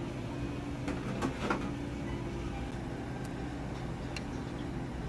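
Restaurant room tone: a steady low hum with a few faint clicks, a cluster about a second in and two more in the second half.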